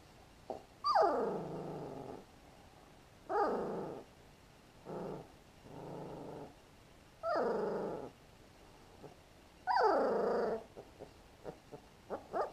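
Three-week-old puppy whining: four loud drawn-out cries that slide down in pitch, with a couple of softer, shorter ones between them.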